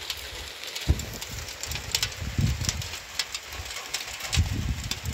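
Rain falling on a flat mud roof, with many sharp ticks of drops striking. Gusts of wind buffet the microphone throughout.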